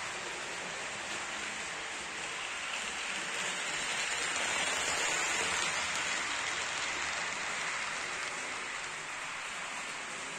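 HO-scale model freight train, a Mehano SD40 diesel model and its cars, running along the track as a steady hiss that grows louder about halfway through as the train passes close.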